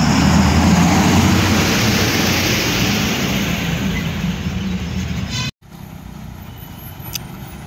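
Heavy multi-axle Ashok Leyland truck's diesel engine and tyres running as it passes close by, loudest at first and fading over a few seconds. The sound breaks off suddenly about five and a half seconds in, leaving quieter vehicle noise.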